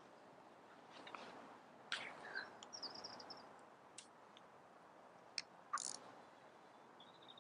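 Faint scattered clicks and taps from a fishing reel and tackle being handled, with a few short bird chirps.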